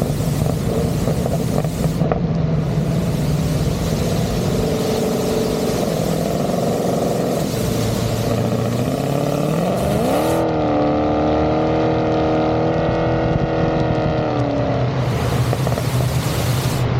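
Car engine and exhaust under way, running steadily, then a short pull: the revs climb about nine seconds in, hold high for several seconds and fall back near the end.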